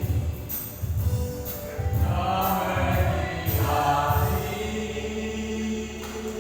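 A senior church choir singing a hymn over a steady beat about twice a second, with sharp percussion strokes. A little over four seconds in, the beat drops away and the voices hold a long final chord.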